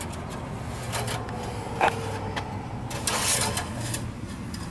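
Scraping, rubbing and small clicks of a dipstick being drawn out of its tube and handled, with a short knock about two seconds in, over a low steady hum.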